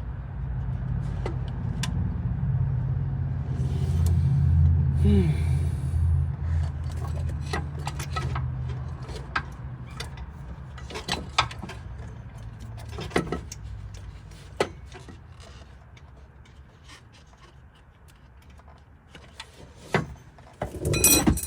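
Scattered metal clicks and clinks of hand tools and fasteners as a 12 mm nut is fitted during an alternator installation, with a low rumble through the first half and a louder burst of clinks near the end.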